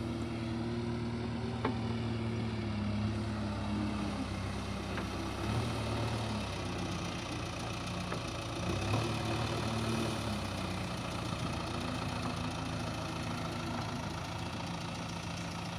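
JCB 3DX backhoe loader's four-cylinder diesel engine running steadily at low revs, its pitch shifting slightly a few times, with a couple of light knocks.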